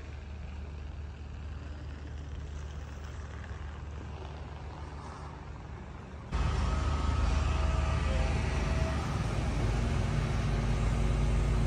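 Outdoor city street ambience: a steady low rumble of traffic and air on the microphone. About six seconds in it jumps to a louder rumble, with a few faint steady tones over it.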